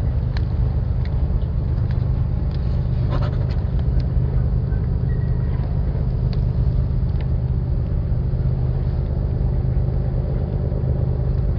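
An engine running steadily nearby: a low, even drone that does not change, with a few faint ticks over it.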